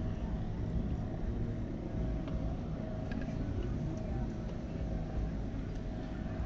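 A steady low rumble with a faint steady hum and a few light ticks.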